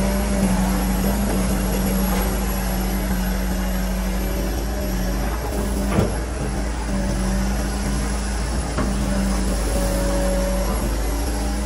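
Kobelko SK200 excavator's diesel engine running steadily, heard from the operator's cab while the boom and bucket dig, with a higher tone coming and going. A single sharp knock about halfway through.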